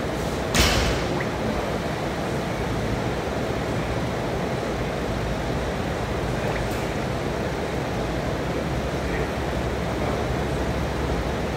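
Steady rushing background noise, with one sharp knock about half a second in and a faint tick around seven seconds.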